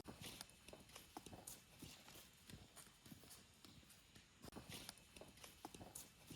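Faint, irregular knocks and clicks, a couple a second, like steps or light handling.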